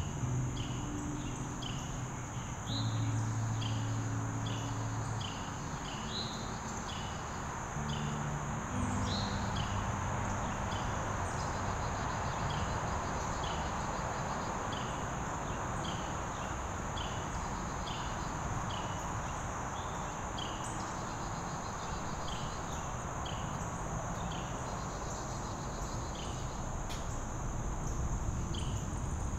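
Woodland insect chorus: a steady high-pitched insect drone, with a short chirp repeating about one and a half times a second, over a soft rushing background.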